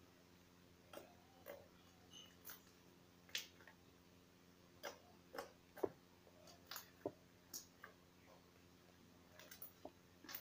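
Crunchy slime with rubber bits in it being mixed by hand with a little added water, giving faint, irregular sticky clicks and pops.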